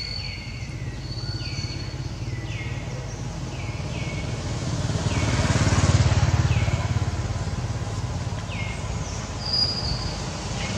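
A motor vehicle's engine running, its hum swelling louder about halfway through as it passes and then easing off. Over it a bird gives short chirps that fall in pitch, repeated about once a second in the first half and again near the end.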